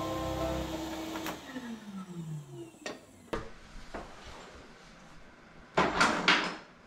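Bosch sliding miter saw's motor running, then winding down with a falling whine after about a second. A few sharp knocks follow, and near the end comes a loud, short rush of noise.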